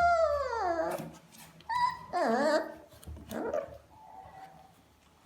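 A puppy whimpering and whining in high-pitched cries: a long cry falling in pitch, then shorter cries about two and three seconds in.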